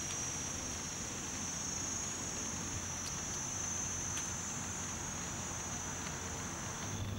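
Insects calling in a steady, unbroken high-pitched drone, with a faint low hum and a few soft clicks beneath.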